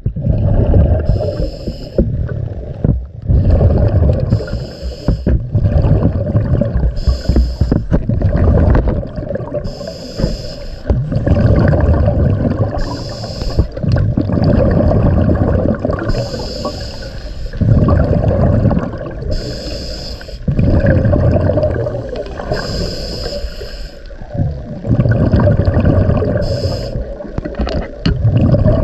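Scuba diver breathing through a regulator underwater: a short hissing inhale about every three seconds, each followed by a low rumbling rush of exhaled bubbles.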